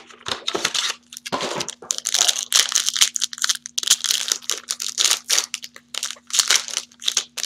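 Foil wrapper of a pack of baseball cards crinkling and tearing in the hands as it is pulled from its box and ripped open, a dense run of irregular crackles and rips.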